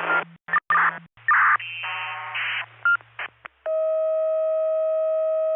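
A run of short electronic beeps and chirps over a low hum, then a long, steady electronic tone that starts about three and a half seconds in.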